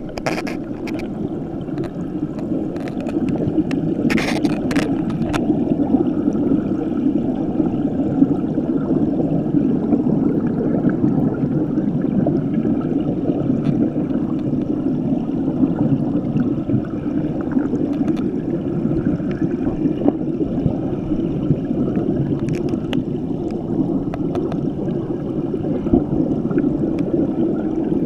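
River water flowing past a camera held underwater, heard as a steady, muffled rushing noise, with a few light knocks about four seconds in.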